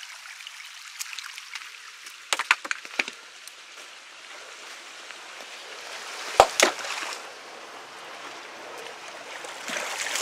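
Water running and sloshing in a small stone irrigation channel while a blockage of sods, mud and weeds is pulled out by hand. A few sharp knocks come about two and a half seconds in, and two heavy thuds just past the middle as thrown clods of earth land. The rush of water gets louder near the end.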